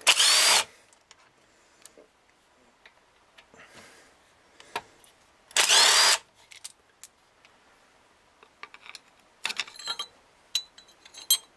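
A small power tool spinning in two short bursts about five seconds apart, each rising in pitch as the motor spins up, backing out the T40 Torx bolts of the camshaft retainer plate on a Gen 4 LS V8. Light metallic clicks of bolts and tools follow near the end.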